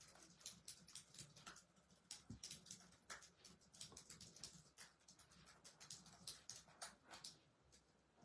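Near silence with faint, irregular clicks and soft rustling.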